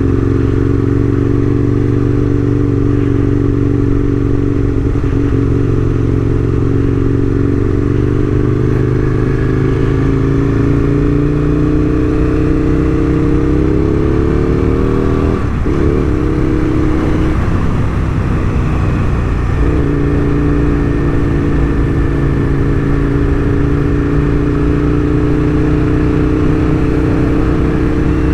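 Aprilia RSV1000's V-twin engine running under way, its pitch climbing slowly as it pulls along. About halfway through the note dips and wavers for a few seconds, then settles into a steady cruise.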